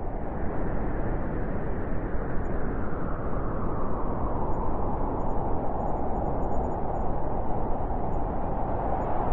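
Blizzard wind blowing steadily, a deep rushing noise that swells a little near the end as a gust builds.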